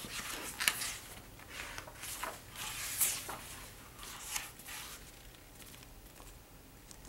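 Pages of a picture book being handled and turned: a run of soft paper rustles that dies away after about five seconds.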